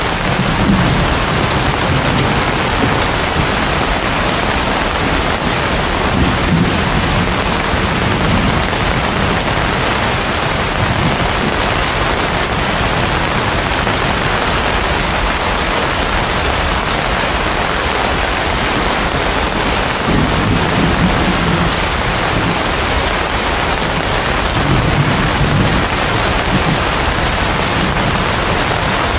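Heavy rain pouring steadily onto broad banana leaves and palm fronds, a dense unbroken hiss of drops. A low rumble swells up briefly four times beneath it.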